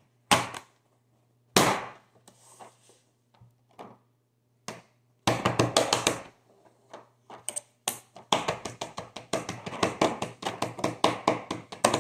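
Fidget toys, silicone pop-its and a plastic link chain, being handled and set down on a wooden table: two sharp knocks in the first two seconds, then from about five seconds in a fast, uneven run of clicks and taps.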